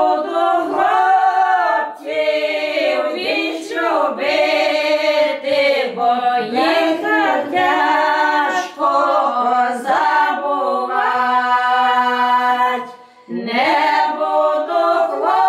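Group of older women singing a Ukrainian folk song a cappella in several-part harmony, in long drawn-out phrases. Near the end they hold one long chord, then break briefly for breath before the next line.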